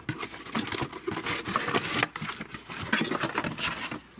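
Paper and plastic packaging from a camcorder box being handled: a dense run of irregular small crackles, rustles and knocks.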